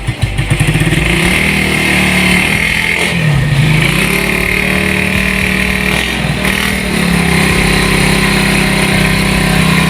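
Suzuki Raider 150 single-cylinder four-stroke engine running after its top-end overhaul: it pulses at a slow idle, then picks up to a steady higher speed about a second in, dips briefly and comes back around the middle, and runs on steadily.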